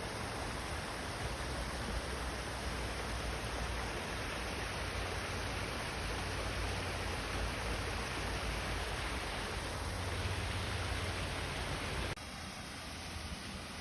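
Steady rushing water, a dense even hiss with a low rumble beneath it. About twelve seconds in it cuts to a slightly quieter, thinner rush.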